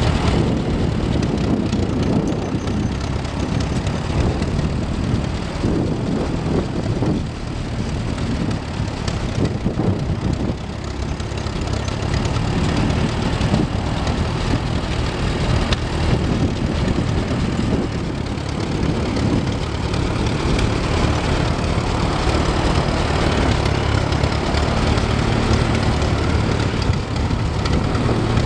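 Allis-Chalmers WD45 tractor engine running steadily, with small rises and falls in level as the tractor is driven.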